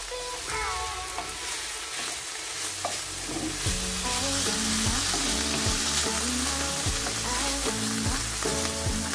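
Ampalaya (bitter gourd) stir-fry with egg and tuna sizzling in a nonstick wok, a spatula scraping and turning it, with light background music under it.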